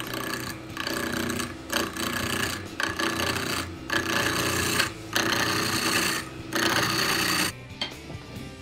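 Wood lathe work: something is held against the spinning wood in about six rasping strokes of roughly a second each, with short breaks between them. Background music plays under it.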